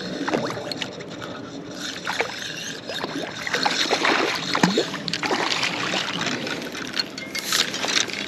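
A small bass splashing as it is reeled in and swung up onto the grassy bank, with scattered short knocks and rustling throughout.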